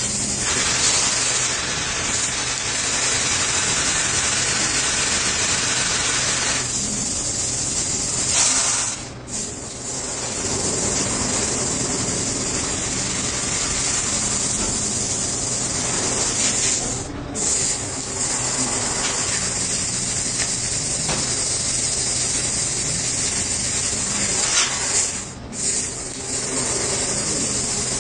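CNC plasma cutter's arc hissing steadily as it cuts, dropping out briefly three times before starting again.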